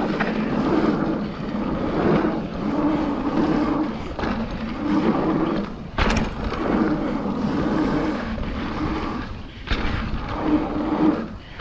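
Mountain bike rolling fast down a dirt trail: steady tyre and frame rattle with a drone that rises and falls every second or so, and two sharp knocks, about six seconds in and near the end.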